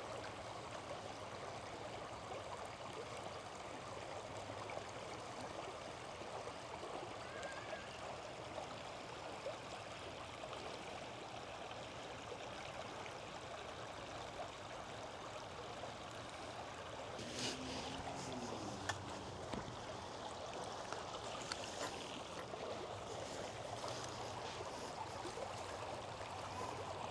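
Shallow creek running steadily over rocks, a soft continuous trickling rush, with a few faint clicks about two-thirds of the way through.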